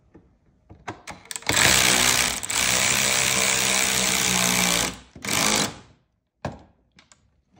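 Cordless rotary tool grinding into a plastic mounting tab on a black plastic body part, a steady high whine with rough grinding noise. It runs for about three and a half seconds, then comes back for two short bursts near the end.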